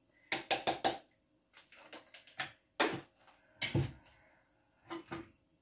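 Kitchen handling sounds: a plastic container clicking and knocking as it is handled. There is a quick flurry of taps about half a second in, scattered light taps, and a heavier knock a little before four seconds as it is set down on the counter, then two light taps near the end.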